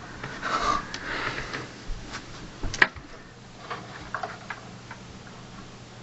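Rustling and light clicks of computer parts and cables being handled, with one sharp click a little under three seconds in and a few small clicks after it.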